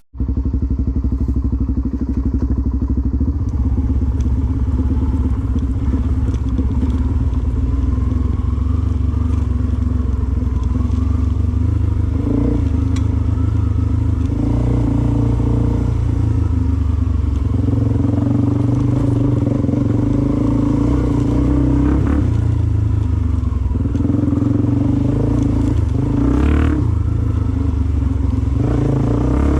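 Off-road dirt bike engine running continuously under riding load, its revs rising and falling every few seconds.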